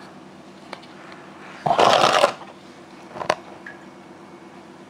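Close handling noise: a light click, then a short rustling swish about two seconds in, and a smaller rustle a little after three seconds.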